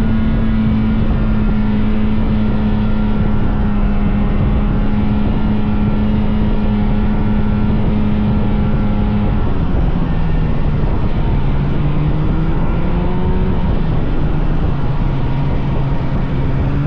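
Vintage snowmobile two-stroke engine running steadily at trail speed; about nine seconds in its pitch drops as the throttle eases, then slowly climbs again as it picks back up. A second engine note rises in pitch through the last few seconds.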